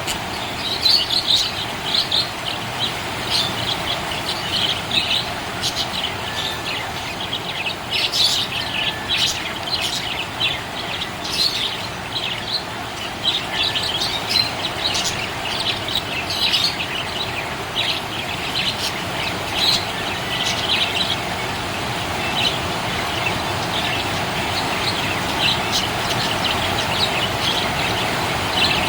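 Budgerigar chirping: a busy run of short, high chirps and twitters that thins out in the last several seconds, over a steady background hiss.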